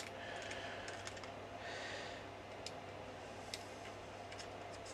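Faint, sparse small clicks and taps of a hard plastic toy car being turned over and handled in the hand, with two soft breaths.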